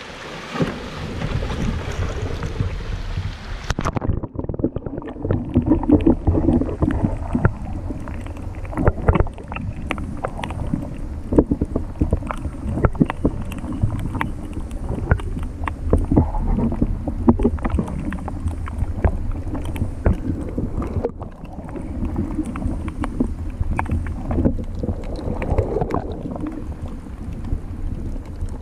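Wind and water splashing at the surface for about four seconds, then the sound turns suddenly dull and muffled as the microphone goes underwater: a low underwater rumble crackling with many sharp clicks and pops.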